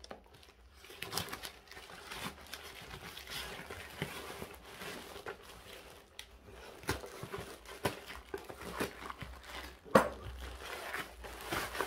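Cardboard carton and packaging being torn open and handled: continual rustling and crinkling with scattered light knocks, and one sharp knock about ten seconds in, the loudest sound.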